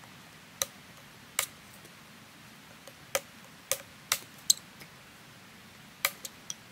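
Sharp wooden clicks and knocks, about nine at uneven intervals, as the stakes and trigger sticks of a deadfall trap are pulled out and dismantled beside the log.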